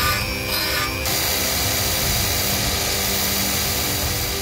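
A power drill spinning a deburring bit in a hole in a metal crank weight for about the first second, then a belt grinder running with a metal part held against its belt, grinding steadily.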